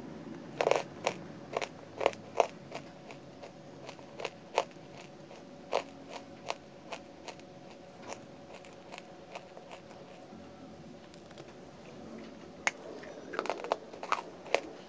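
Dry lumps of edible clay crunching between the teeth in sharp, irregular bites and clicks. They come in a quick run in the first couple of seconds and again near the end, with sparser chewing crunches between.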